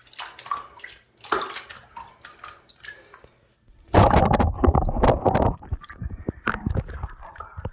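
Phone case being washed under running water: water splashing and gurgling, loudest from about four seconds in, then running more steadily with a few sharp knocks.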